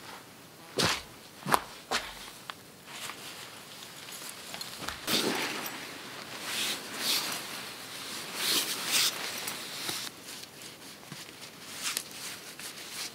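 Footsteps and handling noise on the forest floor: a few sharp snaps in the first two seconds, then a stretch of nylon hammock and quilt fabric rustling and swishing as it is gathered up.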